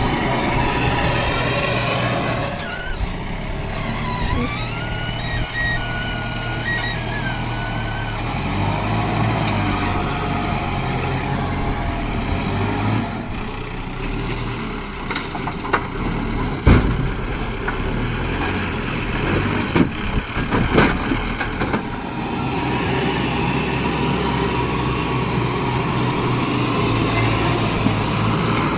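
JCB backhoe loader's diesel engine running under load, with a whine that rises and falls in pitch a few seconds in. A sharp knock a little past halfway and a cluster of knocks about two-thirds through.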